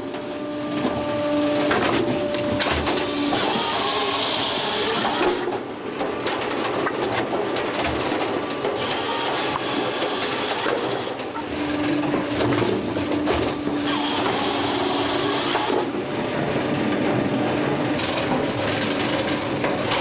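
Palax KS35 firewood processor running. Its 15-inch hydraulic chainsaw cuts through logs in spells of louder hissing that start and stop several times, over the steady noise of the machine, with a humming tone coming and going.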